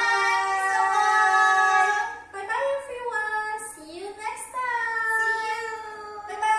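Women singing a sing-song goodbye in high voices, with long held notes: one phrase at the start, a brief drop, then another long phrase from about two-thirds of the way in.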